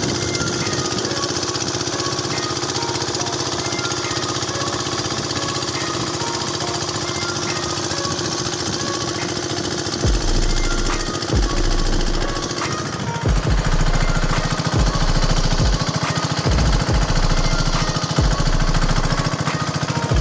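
Small boat engine running steadily with a fast, rattling beat as the boat motors across open water. From about halfway in, low gusts of wind buffet the microphone.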